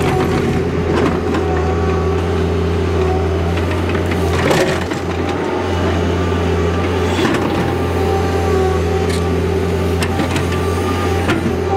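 Hydraulic excavator's diesel engine running steadily under load with a steady whine, while the bucket digs and scrapes through soil and rock. Several sharp knocks of stone against the bucket, the loudest about four and a half seconds in.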